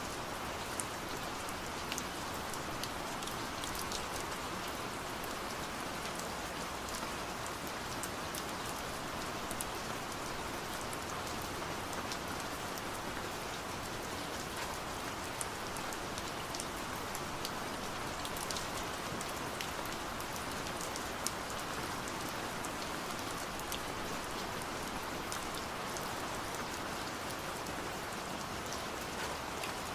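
Steady rain falling, with scattered sharp drop hits standing out from the even patter.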